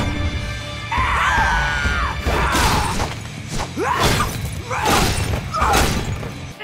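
Cartoon action sound effects: a giant dumbbell smashing into concrete paving several times, heavy crashes with stone shattering, over dramatic action music.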